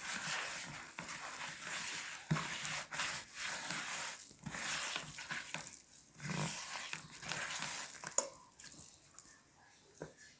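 Hands rubbing and squeezing a crumbly butter-and-flour dough against a plastic bowl: a steady run of rasping strokes that fades away over the last couple of seconds.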